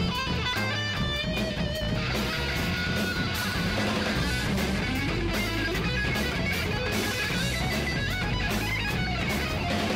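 Rock music with electric guitar, thickening into a denser, fuller texture about two seconds in.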